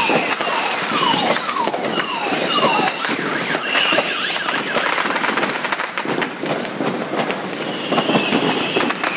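Firecrackers going off in a dense, continuous string of sharp pops. Repeated short falling whistles and a few held high whistles sound over the crackle.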